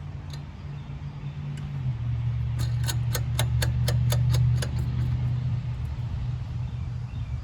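Ratchet wrench clicking about five times a second, around ten clicks, as lug nuts are run onto a golf cart's rear wheel. A steady low hum sounds underneath throughout.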